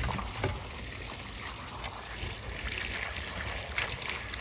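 Wind buffeting the microphone in a steady low rumble, with a few faint clicks of small parts being handled.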